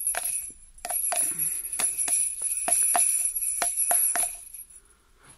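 Jingle bells on wristbands shaken by hand-waving, a quick jingle at the start and then repeated shakes in a rough rhythm from about a second in, dying away near the end.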